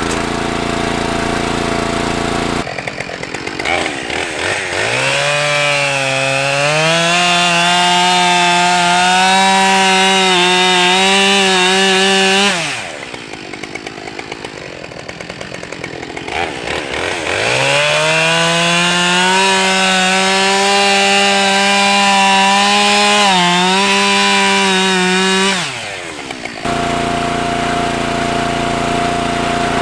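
Two-stroke chainsaw revving up and held at high speed through two long cuts, with a brief drop in pitch as it bites during the second. A small engine runs steadily at the start and the end.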